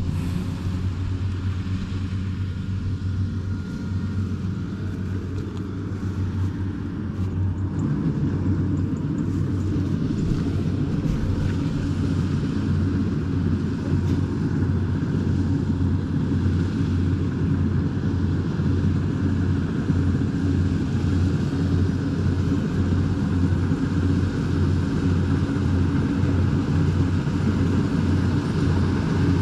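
Rice combine harvester's engine running with a steady low hum, growing a little louder and fuller after several seconds.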